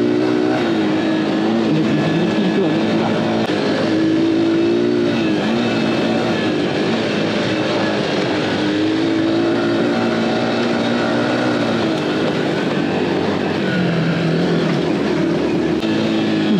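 Aveta Ranger Cub Cross 115's 115cc single-cylinder engine running under load, its pitch rising and falling again and again as the throttle is worked.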